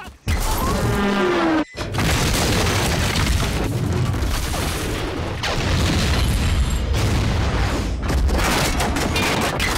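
Film sound design of a freight-train derailment: a continuous heavy rumble of explosions and crashing debris, full of repeated booms and impacts. Twice in the first two seconds the sound cuts out abruptly and slams back in, and a falling whine sounds about a second in.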